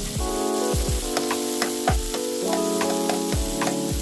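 Background music with sustained chords and a steady beat of about two thumps a second, over the steady sizzle of garlic and onion frying in oil in a pan.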